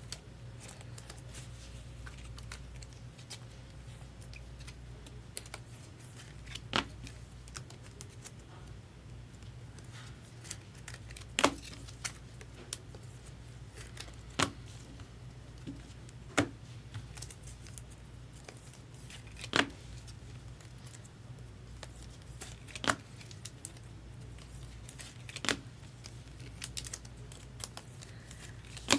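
Trading-card packaging being handled and opened: sharp clicks and taps every couple of seconds with light tearing and crinkling, over a steady low hum.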